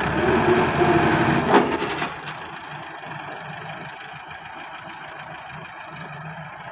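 Massey Ferguson front-loader tractor's diesel engine working harder for the first two seconds, with two sharp knocks about a second and a half and two seconds in, then settling to a steady idle as the bucket is lowered to the stone pile.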